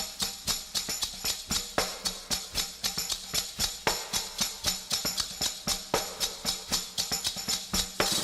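Music: a quick, even rhythm of light percussion strokes over a low held note.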